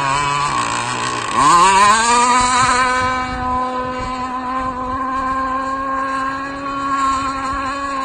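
Zenoah 29.5 cc two-stroke gas engine of an RC rigger boat running flat out on the water. A little over a second in, its revs sweep sharply up and it gets louder, then it holds a steady high pitch.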